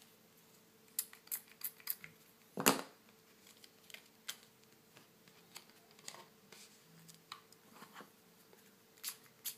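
Thin plastic screen-protector film and its paper backing sheet being handled and peeled apart: scattered crackles and clicks, the loudest a short knock about two and a half seconds in.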